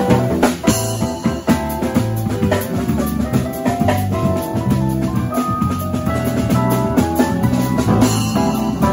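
Live instrumental band playing with drum kit, electric bass and a Nord Electro 4 keyboard, the drums keeping a busy beat under the melody.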